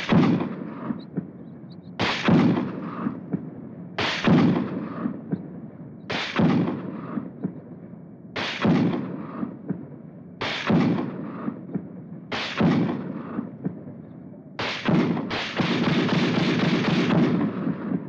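Machine-gun fire from a sound-effects library recording: a string of short bursts about every two seconds, each ringing out with an echo. About fifteen seconds in comes a longer, continuous burst.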